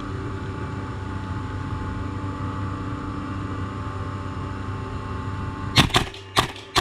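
Airsoft gun firing four sharp single shots in quick succession near the end, over a steady mechanical hum.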